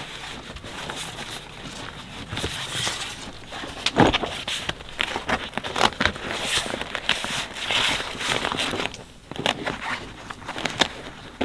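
Irregular clicks, knocks and rustles of an awning pole being raised and adjusted, with one sharp knock about four seconds in.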